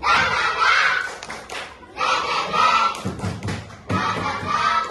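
A group of children shouting together in short bursts of about a second each, with dull thumps about three and four seconds in.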